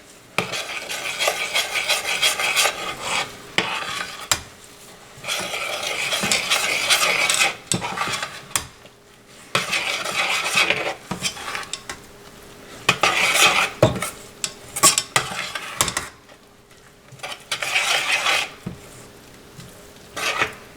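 Oats being stirred into a thick, hot cocoa and sugar mixture in a pan: scraping against the pan in stretches of a few seconds with short pauses, and an occasional clink of the utensil on the pan.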